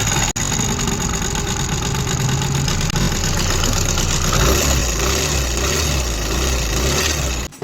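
Motorcycle engine running with a fast mechanical ticking knock, an abnormal engine noise that the mechanic ties to the oil pump. It speeds up slightly about halfway through and cuts off abruptly near the end.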